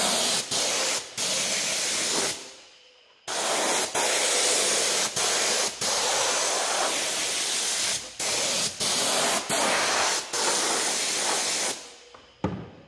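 Air-powered glue spray gun spraying upholstery adhesive onto foam: a loud hiss cut by short pauses each time the trigger is let go, with a longer pause about two and a half seconds in. The spraying stops near the end and a single thump follows.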